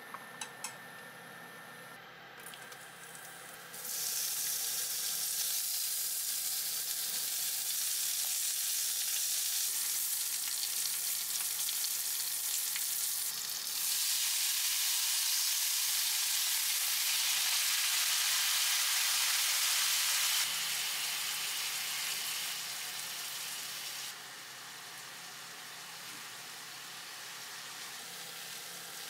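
A few light clicks at the start, then fettuccine sizzling in a cast-iron skillet with pan-fried shrimp and garlic as it is tossed with chopsticks. The sizzle swells about halfway through, then settles to a softer hiss for the last few seconds.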